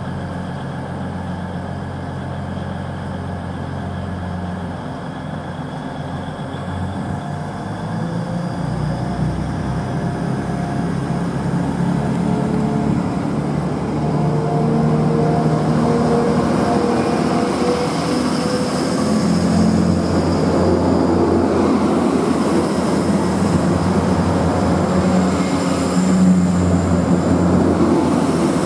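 British Rail Class 180 diesel multiple unit pulling away: its underfloor Cummins QSK19 diesel engines run steadily at first, then rev up about seven seconds in, rising in pitch and growing louder. The engines keep going at full power with a high whine as the five carriages pass.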